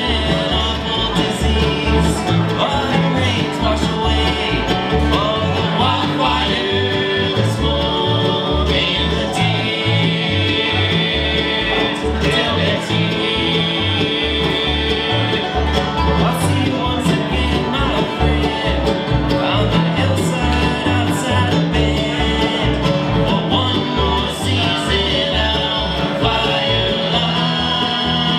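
Live bluegrass band playing: upright bass, banjo, mandolin and acoustic guitar, with the bass keeping a steady beat under the picking.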